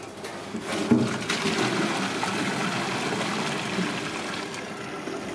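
Water running and splashing in a stainless-steel sink around a pot of boiled duck eggs, with a knock about a second in.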